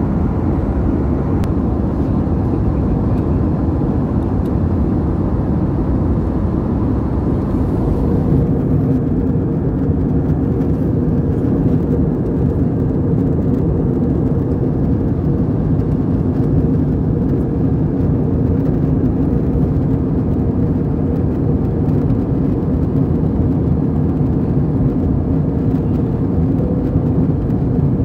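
Steady drone inside a jet airliner's cabin in flight: engine and airflow noise heavy in the low end. About eight seconds in, the higher hiss drops back and a steady low hum comes forward.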